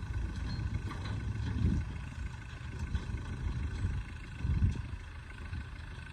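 Diesel engine of heavy earthmoving machinery running with a steady low rumble, swelling briefly twice.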